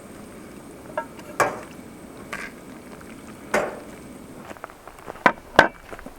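Cooking utensils knocking and clinking against pots and dishes, about six separate sharp knocks, two of them close together near the end.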